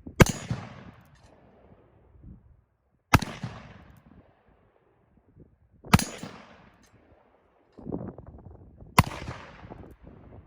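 Four shots from a .45 Colt single action revolver loaded with black-powder cartridges, fired slowly about three seconds apart, each with a short echo trailing off.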